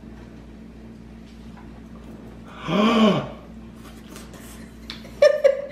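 A short wordless vocal exclamation, its pitch rising then falling, over a steady low hum. A few faint small clicks come near the end.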